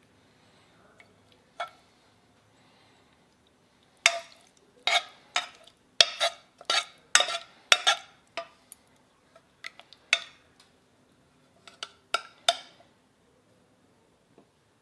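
A metal spoon clinking and scraping against a ceramic bowl and a metal pot as braised chard and beans are spooned out. There is one click about a second and a half in, then a quick run of about a dozen sharp, ringing clinks from about four seconds in to near the end.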